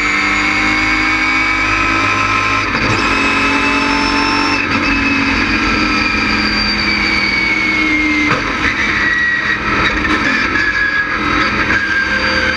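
LS6 V8 engine of a GTA stock car at racing speed, heard from inside the cockpit. Its pitch climbs with two short breaks in the first five seconds, then falls slowly through the rest.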